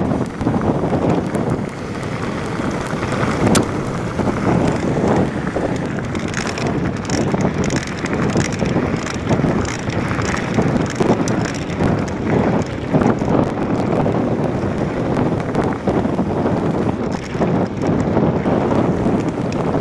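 Wind buffeting the camera microphone over the rumble and rattle of mountain bike tyres on a loose gravel track at about 26 mph, with frequent small knocks and clatters from the stones.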